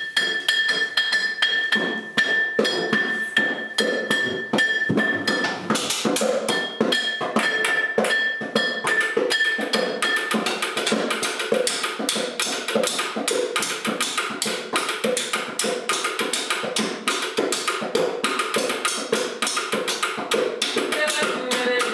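Improvised kitchen percussion on household objects: fast, busy tapping and knocking on wood and glass, getting denser about six seconds in. A steady high ringing tone sounds over the first few seconds, then breaks up and fades out by about ten seconds in.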